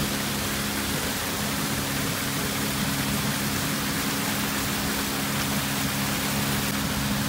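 Small boat's motor running at a steady speed, a constant low hum under an even hiss of rushing water.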